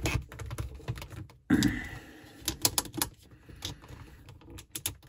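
Plastic clicks and taps from a 1:6 scale action figure being handled and one of its clawed hands taken off, with a louder knock and rub about one and a half seconds in.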